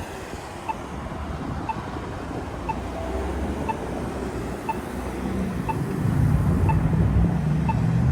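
Polara EZ Communicator accessible pedestrian signal's locator tone ticking about once a second, over the noise of street traffic. A vehicle's engine rumble grows louder in the last couple of seconds.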